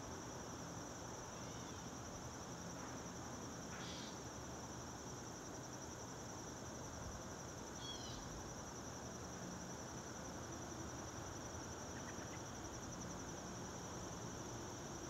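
Outdoor insect chorus: a steady, high-pitched pulsing drone of chirring insects over a faint hiss, with a couple of brief higher chirps about four and eight seconds in.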